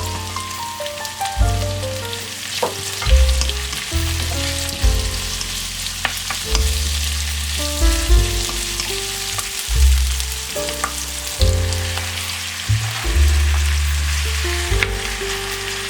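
Stir-fry sizzling in a hot pan as it is stirred, with scattered clinks of the utensil. Soft background music with a bass line plays over it.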